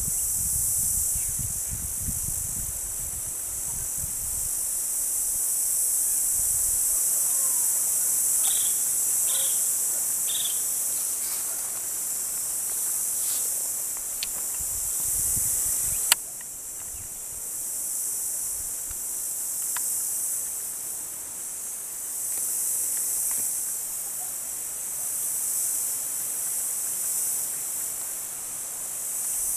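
Steady, high-pitched buzzing chorus of insects. A low rumble fades out over the first few seconds, a few short chirps come about a third of the way in, and a single sharp click sounds about halfway through.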